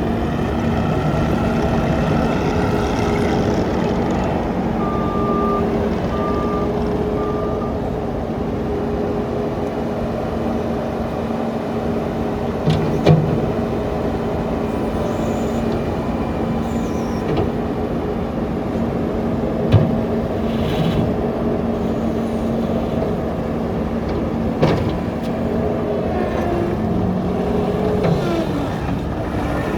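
Case TV450B skid steer loader's diesel engine running steadily, with three short beeps about five to seven seconds in and a few sharp knocks later on.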